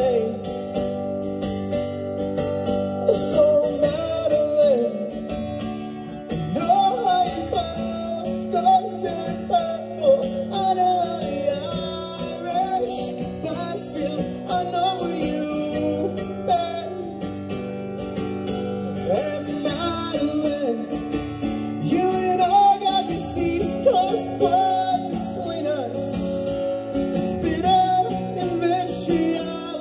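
Live band playing acoustic: several strummed acoustic guitars with bass and a drum kit, a man singing the lead vocal over them.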